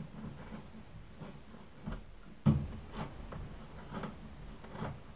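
Manual hand drill boring into a wooden door: light ticks and scrapes about two a second as the bit is turned into the wood, with one louder knock about two and a half seconds in.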